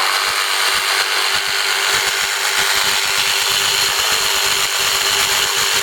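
Kobalt 24-volt Max brushless jigsaw running steadily in free air, not cutting, its blade reciprocating with an even high whir and its dust blower switched off.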